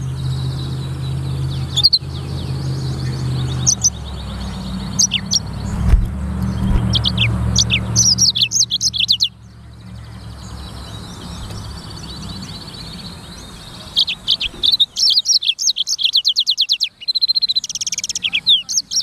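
Blackthroat (black-throated canary) singing in rapid, high twittering trills, loudest about eight seconds in and again through the last five seconds. A low steady hum lies under the first half.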